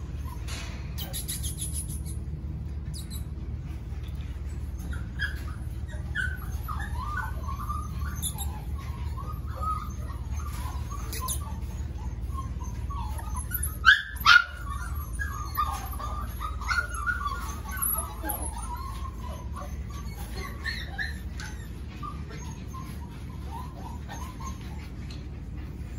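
A litter of five-week-old golden retriever puppies yipping and whining as they play, in many short high calls, with two louder sharp barks about fourteen seconds in. A steady low hum runs underneath.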